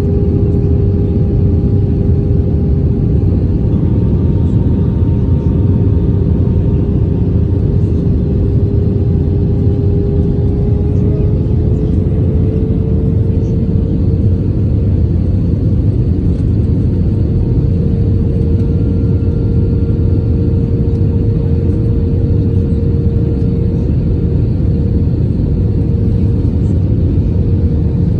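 Steady cabin rumble of an Airbus A320-family jet airliner on approach with flaps extended: jet engine and airflow noise heard from inside the cabin, with a steady engine hum that rises slightly in pitch about halfway through.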